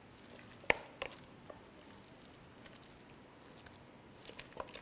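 A stainless steel pot tipped over a springform pan, with two light knocks about a second in. Soft wet sounds follow near the end as the thick vegetable filling slides out of the pot into the pan.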